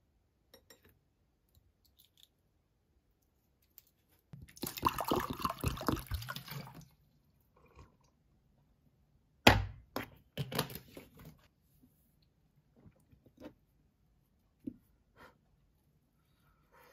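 Water being poured for about two and a half seconds, then a single sharp knock as something is set down on the table, followed by a short clatter and a few light clicks.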